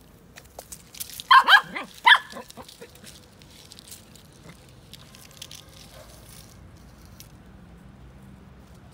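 Small dog giving a few sharp, high barks in quick succession about a second in, at a snake it is confronting, followed by faint rustling.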